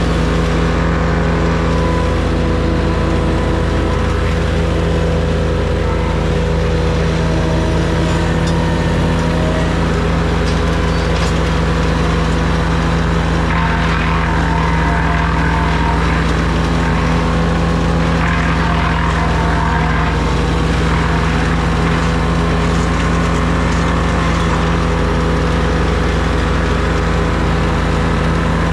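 An engine running steadily at constant speed throughout, with two stretches of rougher, grittier noise over it around the middle.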